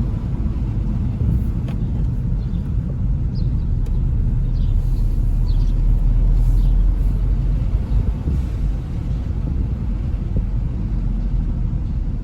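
Low, steady rumble of a car engine running: a 2014 Hyundai Veloster Turbo's turbocharged four-cylinder, which has been throwing misfires on cylinders 1 and 3.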